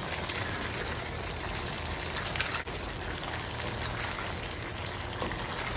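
Creamy white cashew gravy with paneer and vegetables bubbling in a kadai as a silicone spatula stirs through it: a steady hissing bubble.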